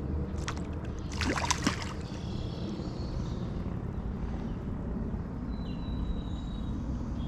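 Water splashing in a shallow creek as a hooked smallmouth bass is fought and landed, with a cluster of sharp splashes between about half a second and two seconds in, over a steady low rumble.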